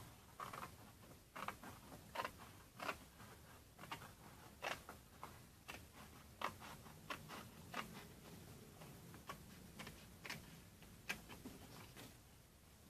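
Scissors cutting through a sheet of origami paper: a string of irregular crisp snips, about one or two a second.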